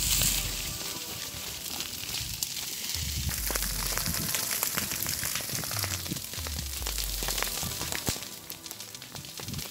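Dry grass and stubble burning in an open field fire: a steady crackling hiss of the flames with many small sharp pops.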